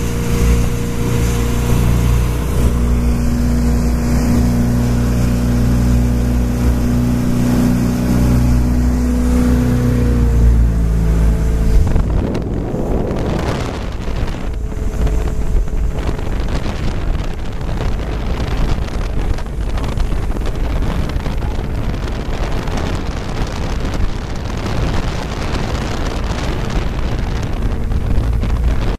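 Jet boat's Chevy big-block V8 running hard at speed, a steady engine note that dips slightly about ten seconds in. After about twelve seconds the engine note gives way to the rush of wind buffeting the microphone and water passing the hull.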